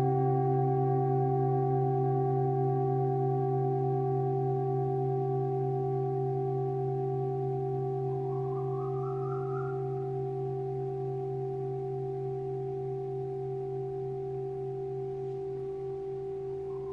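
Antique Tibetan singing bowls ringing on together, a sustained chord of a low hum and higher overtones with a slow wavering beat, gradually fading. Twice, about halfway and near the end, a fainter higher tone swells briefly and rises in pitch.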